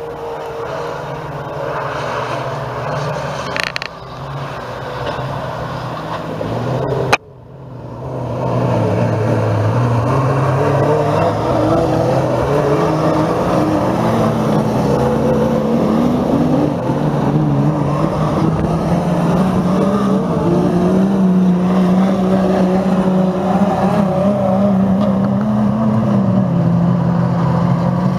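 Engines of several old GAZ trucks racing on a dirt track, their pitch rising and falling as they rev, shift and pass. About seven seconds in the sound breaks off abruptly and comes back louder.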